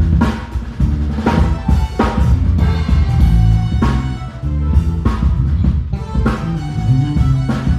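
Live band playing an instrumental groove: drum kit with regular bass drum and snare hits over a stepping bass line and electric guitar.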